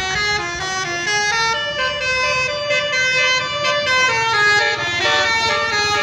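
Tour bus's telolet multi-tone horn playing a fast tune of stepped notes, jumping up and down in pitch, over a low rumble.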